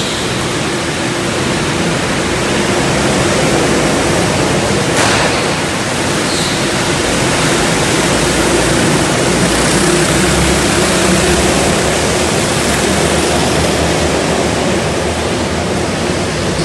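Several go-kart engines running together on an indoor track, heard as a steady, dense wash of engine noise in the hall.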